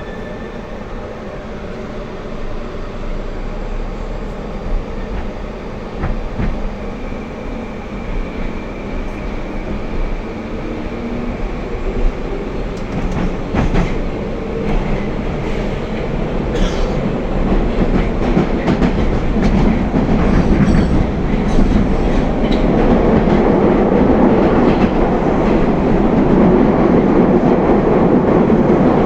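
Moscow Metro 'Moskva-2024' train pulling away from a station and accelerating, heard from inside the car: the running noise of wheels on rail grows steadily louder, with a faint rising motor whine early on and scattered clicks over rail joints in the middle.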